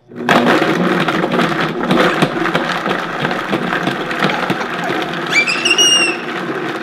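Vitamix A3500 blender starting up and running loud, its blades clattering as they chop chunks of carrot and kale while the tamper pushes them down into the 64-ounce container. A child gives a brief high squeal about five seconds in.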